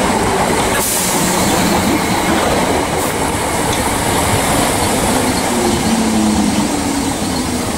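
Class 377 Electrostar electric multiple unit running past along the platform, with steady wheel-on-rail noise and a faint motor tone.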